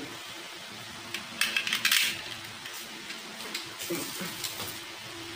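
C.10A+ spring-type airsoft pistol being handled: a quick cluster of sharp clicks and rattles about a second and a half in, with a few fainter knocks later. A low steady hum runs underneath.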